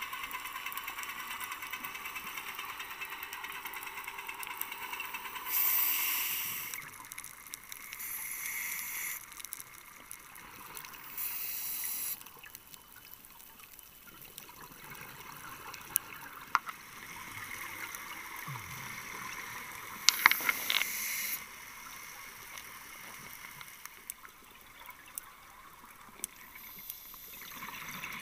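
Scuba diver's exhaled bubbles from the regulator, heard underwater through a camera housing: a bubbling rush every few seconds over a steady hiss. A few sharp clicks come in near the middle.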